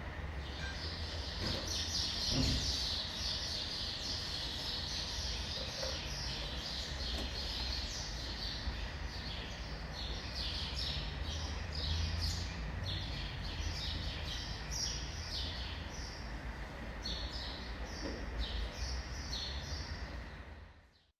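Many birds chirping in quick, overlapping calls over a steady low city and traffic rumble, fading out near the end.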